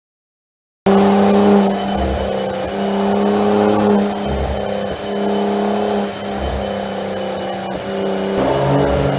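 Porsche Macan Turbo's 3.6-litre twin-turbo V6 starts sounding suddenly about a second in. It is then held at steady high revs, with short dips about every two seconds.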